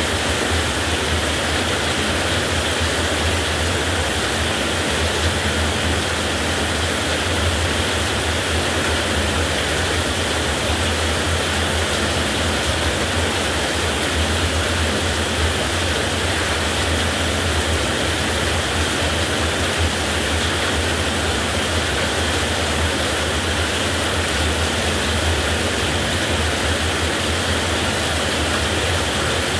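Heavy rain falling steadily: a dense, even hiss with a steady low rumble underneath and no thunderclap.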